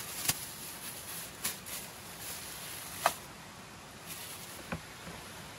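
Plastic bags of food being handled as they come out of a cooler: a few short, sharp crinkles and taps, the loudest about three seconds in, over a faint steady hiss.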